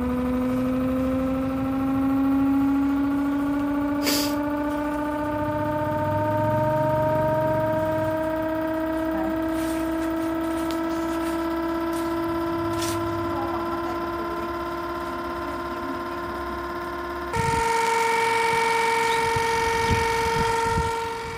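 Homemade pulse motor whining, its drive coil wound on a transformer-lamination core: a pitched tone with overtones that slowly rises as the rotor speeds up. About seventeen seconds in it gives way to a louder, steady, higher tone with the rotor at just under 1300 rpm.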